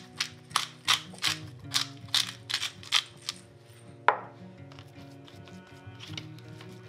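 Hand-twisted pepper mill grinding black pepper in quick crunchy twists, about two to three a second, stopping about three seconds in; a single sharp knock follows about a second later. Soft background music plays throughout.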